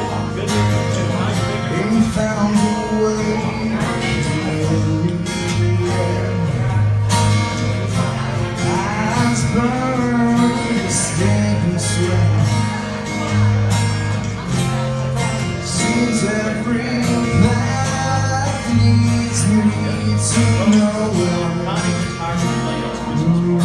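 Live acoustic guitar music, a slow passage of a rock song with sustained low notes.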